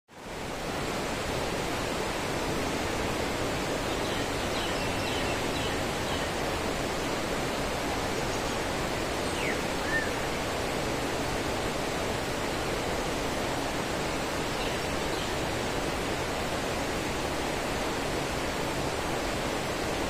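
Steady rush of a stream running with afternoon rainwater, fading in at the start, with a few faint bird chirps now and then.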